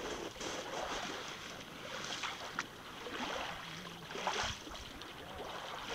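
Small waves lapping on a gravel lakeshore, washing in about every two seconds, with a few faint clicks.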